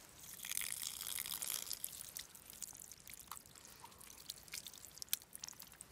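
Water hissing and spurting from a plastic garden hose still under residual pressure as a knife cuts into it, easing after about two seconds into drips and small clicks of the blade working through the hose.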